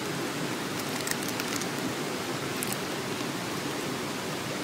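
Steady, even rushing of water from a stream, with a few faint clicks.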